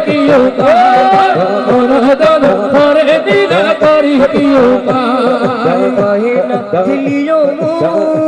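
Bengali Maijbhandari devotional song sung live: male voices carry a wavering, ornamented melody over instrumental accompaniment with a regular beat.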